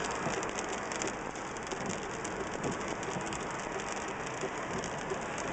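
Steady rain from a thunderstorm, a dense, even hiss of many small drop impacts.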